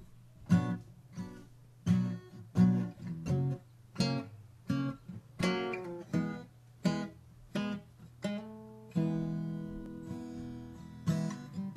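Acoustic guitar intro: chords struck one after another, each ringing out briefly, then a longer chord left to ring from about nine seconds in.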